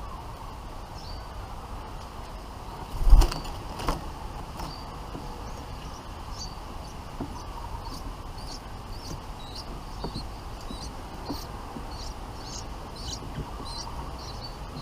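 Bulbuls giving short, high chirps, repeated more than once a second through the second half, over a steady background hum. A single loud thump comes about three seconds in.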